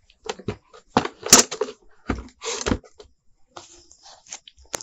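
Irregular plastic clicks and knocks from handling a VISION 8-inch exhaust fan and its plastic back shutter flaps, with one louder knock about a second in.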